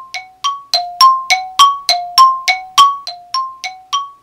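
Two-note chime sound effect, struck about three times a second and alternating between a lower and a higher note, each strike ringing briefly. It swells louder through the middle and eases back near the end, a thinking-time cue while the riddle waits to be solved.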